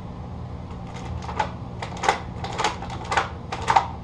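Mini paint roller being worked back and forth in a plastic-lined paint tray to load it with paint: a run of short crackling clicks, starting about a second in.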